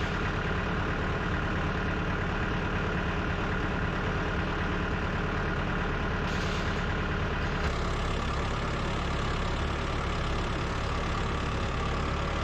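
Old tractor engine running steadily, its tone shifting slightly about two-thirds of the way through.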